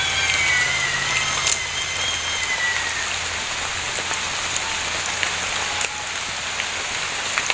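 Steady rain, with a high, thin, wavering cry that slowly drops in pitch and fades out about three seconds in: the unidentified shrill animal call heard in the forest at night.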